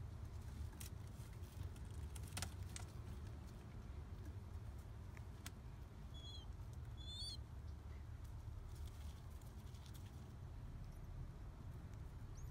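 Two short, high, squeaky peeps about six and seven seconds in, a newly hatched pigeon squab begging while a parent feeds it, over a faint steady low rumble with a few light clicks.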